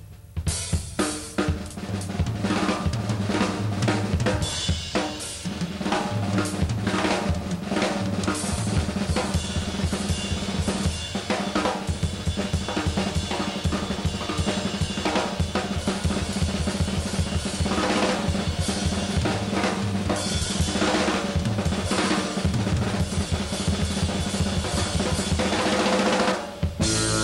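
Live drum solo on a full drum kit: fast, dense rolls across drums and cymbals in an unbroken barrage, stopping briefly just before the end.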